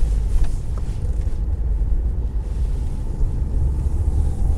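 Steady low rumble of a car driving slowly through town traffic: road and engine noise heard from inside the cabin.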